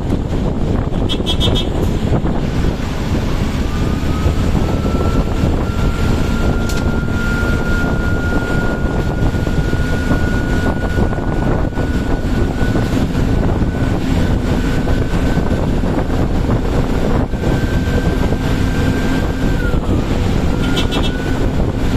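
Diesel bus turbocharger whistling over the engine and road rumble: a thin high whine that climbs in pitch over the first few seconds, holds steady, drops sharply near the end, then starts climbing again.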